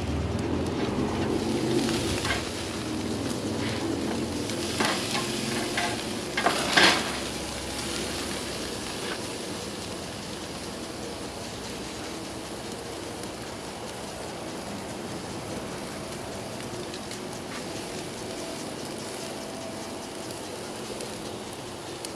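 Ribeye steak sizzling as it sears over hot charcoal on a grill. There are a few sharp knocks in the first seven seconds, the loudest about seven seconds in. After about eight seconds the sizzle settles and runs more quietly.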